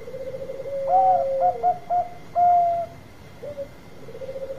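Zebra dove (perkutut) cooing: a quick stuttering run of notes leads into a long held coo that drops at its end, while higher, shorter coos from a second voice overlap it. Near the end the stuttering phrase starts again.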